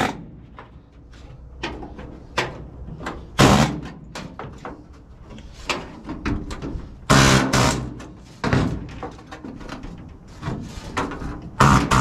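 Irregular metallic knocks and taps from a hammer and chisel on the steel cab floor of a 1950 Chevy pickup, working the seat platform's spot welds loose. Lighter taps run between four hard strikes, some with a short metallic ring.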